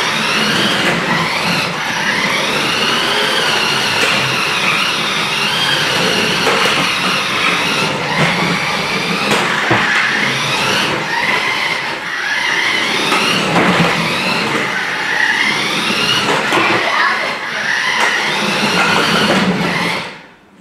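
Battery-powered 1:10 scale RC Lamborghini Murcielago toy car driving, its electric motor and gears whining up and down in pitch as it speeds up and slows. The whine cuts off near the end.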